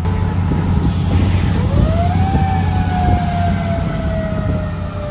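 Fire truck siren that rises quickly in pitch about a second and a half in, then slowly falls, over the loud low rumble of a heavy truck engine.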